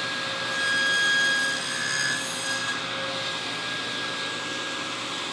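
Table saw running at full speed with a steady whine. From about half a second to two and a half seconds in, the blade cuts a shallow groove in a scrap of plywood and grows louder, then it spins free again.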